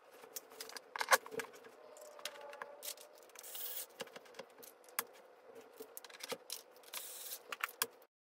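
Irregular clicks, knocks and scrapes of plastic office-chair parts being handled and bolted together with a hand screwdriver. The sound cuts off suddenly near the end.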